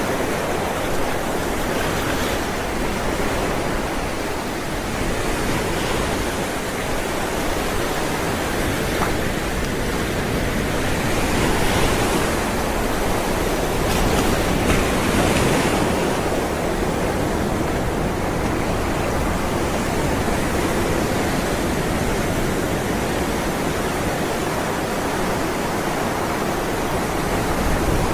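Ocean waves rolling in a continuous rush of surf, with a couple of waves washing in a little louder about halfway through.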